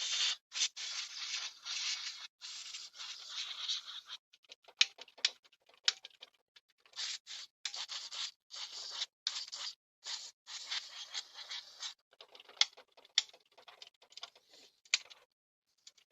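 Rapid scratchy scrubbing and scraping strokes by hand, coming in runs of about half a second to a second with short gaps, mixed with small sharp clicks.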